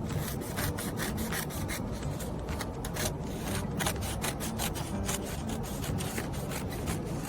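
Construction paper rubbing and rasping as it is handled, a dense run of quick, crisp scratchy strokes.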